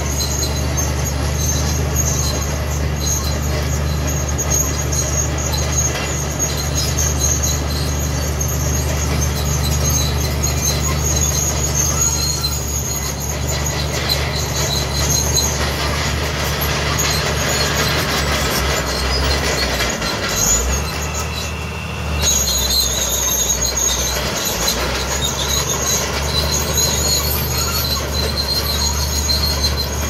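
Crawler bulldozer working, its diesel engine running steadily with a high-pitched squeal and metallic grinding from the steel tracks and undercarriage.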